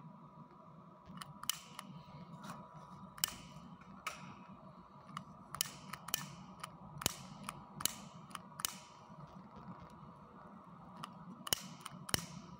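AVC 12 V computer cooling fan running with a steady hum, under irregular sharp clicks and ticks that start about a second in, some in quick pairs.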